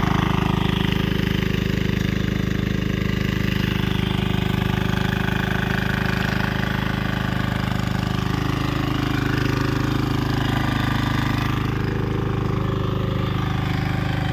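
Walk-behind power tiller's single-cylinder diesel engine running steadily with an even, rapid pulse while its rotary tiller works the soil between crop rows.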